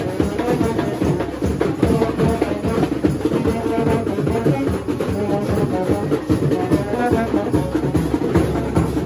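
Live wedding band: dhol drums beaten in a fast, even rhythm, with a brass horn melody playing over them.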